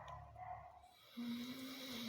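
Dog snoring in its sleep: a snore at the start, then a longer, steady, slightly whistling breath from about halfway through.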